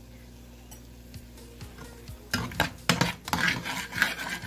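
Perforated steel spatula stirring thick ground masala paste in a metal kadai, scraping against the pan with quick, clattering strokes that start about two seconds in.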